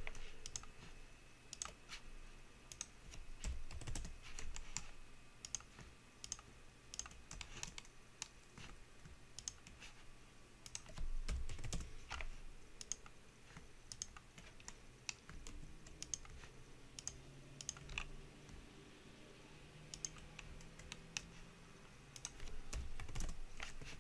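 Computer keyboard keys and mouse buttons clicking in irregular clusters, shortcut presses rather than steady typing, over a faint steady hum.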